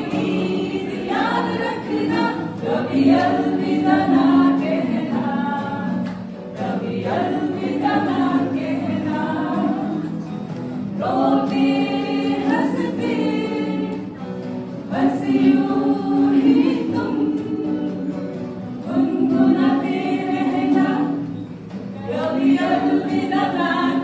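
A small mixed group of men and women singing a song together in phrases of a few seconds, accompanied by an acoustic guitar.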